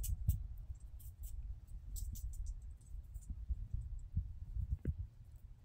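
Low rumbling noise on a handheld phone's microphone, with scattered faint, sharp high clicks.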